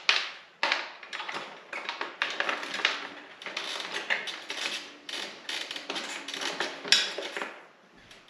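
Irregular clicks, taps and rattles of hands working small plastic parts and wiring, with a sharper click about 7 seconds in.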